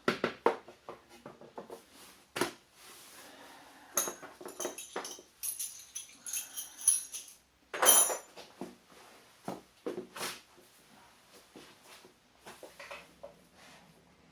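Metal motorcycle parts and hand tools being handled and set down: a string of irregular knocks and clicks, with metallic clinking and jingling about four seconds in and again, loudest, near eight seconds in.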